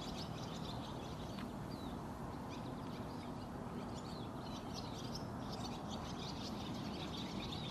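Many small birds chirping in quick short notes over a steady rush of flowing river water.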